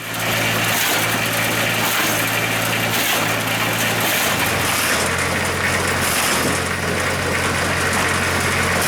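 An engine running steadily, with its pitch dropping a little about four seconds in.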